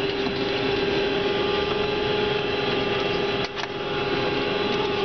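Steady airliner cabin noise: the engines and air system run with a constant tone over an even rush, dipping briefly about three and a half seconds in.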